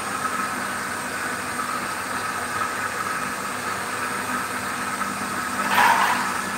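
Commercial RO water plant running: the steady hum of its vertical multistage high-pressure pump motor, with a higher steady tone above it. A short, louder whoosh comes about six seconds in.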